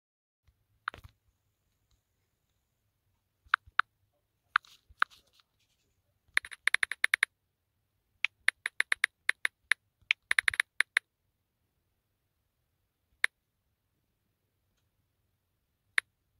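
Smartphone on-screen keyboard tap sounds as a text message is typed: short sharp clicks, some single and some in quick runs of several taps, with silence between.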